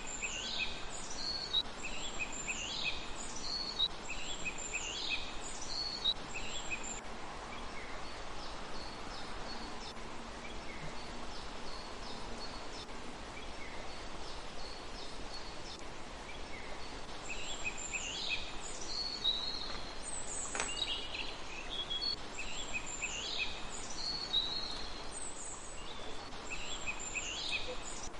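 Birds calling in repeated clusters of short, high, falling chirps over a steady hiss of outdoor background noise. The calls come thickly at the start, thin out in the middle, and return from about two-thirds of the way in.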